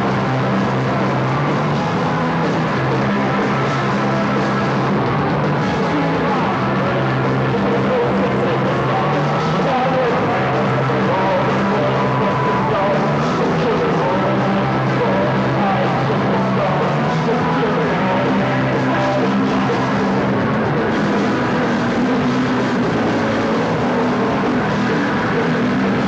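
Punk rock band playing live: bass guitar and drum kit in a steady, loud stretch of music, recorded through a VHS camcorder's microphone.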